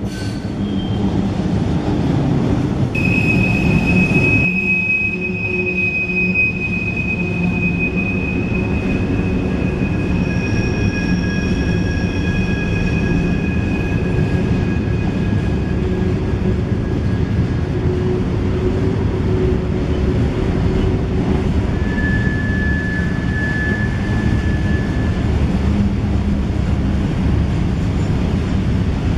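Loaded freight gondola cars carrying pipe rolling past with a steady rumble of steel wheels on rail. Long, steady high-pitched wheel squeal comes in a few seconds in and again near the end, as the wheels grind around a curve.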